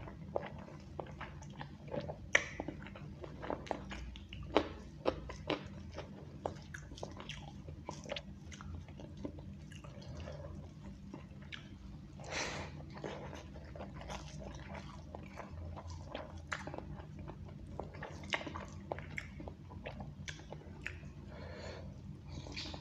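Close-miked eating sounds: a man chewing mouthfuls of rice and egg curry that he eats by hand, with many sharp, wet mouth clicks and a louder squelchy bite about halfway through.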